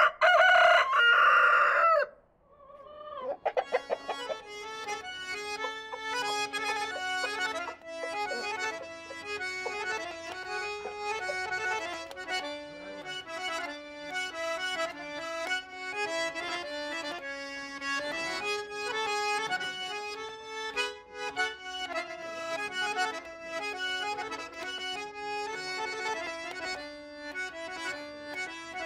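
A rooster crows once, loud, for about two seconds. From about three seconds in, an accordion plays a tune over a steady held drone note until the end.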